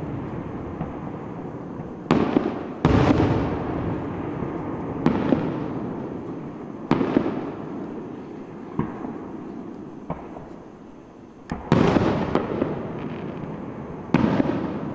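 Aerial fireworks shells bursting: a series of sharp booms a few seconds apart, some loud and some fainter, each trailing off in a long fading echo.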